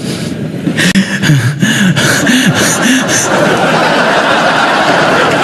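A man chuckling into a microphone while a large audience laughs along; the crowd's laughter swells after about three seconds.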